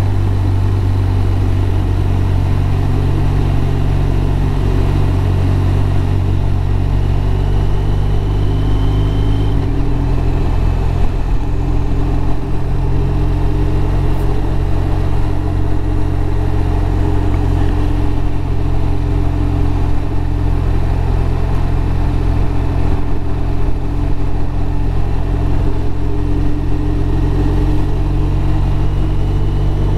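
BMW R1200RT's flat-twin engine running steadily under way, heard from the rider's seat, with its note changing once about ten seconds in.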